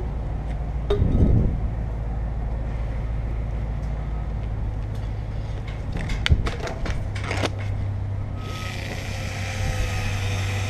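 A urethane cartridge being loaded into a caulking gun and handled: a bump about a second in, then a few sharp clicks and knocks a little past halfway, over a steady low hum.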